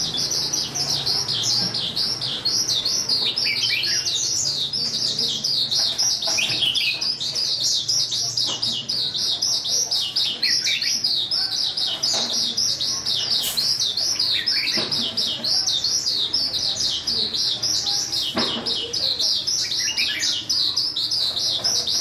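A songbird twittering in a fast, unbroken stream of high, quick chirps, with a lower, falling note now and then.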